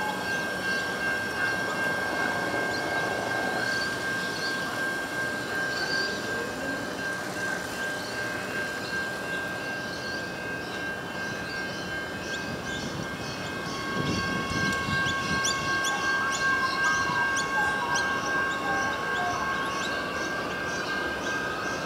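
Adelaide Metro 4000-series electric train running away along the track, with a steady high whine over rail noise. A low rumble comes in about two-thirds of the way through.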